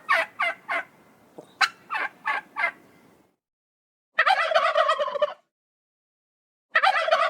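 Turkey gobbling: a quick run of short calls, then two longer wavering gobbles.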